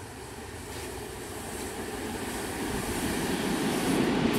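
PKP EP07 electric locomotive EP07-356 hauling an Intercity passenger train as it approaches and comes alongside, its running noise growing steadily louder.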